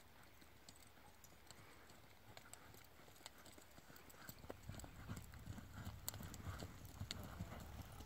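Hoofbeats of two horses walking on a dirt track, faint at first and growing louder from about halfway through as they come near.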